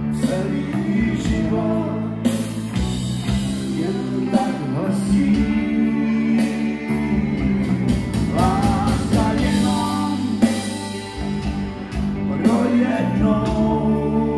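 Live band playing a song with a man singing, over electric guitar, electric bass and a drum kit.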